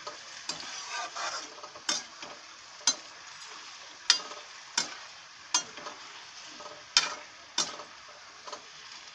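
Flat metal spatula stirring vegetables in a steel kadhai, scraping and clacking against the pan in sharp strikes about once a second, over a faint steady sizzle of frying oil.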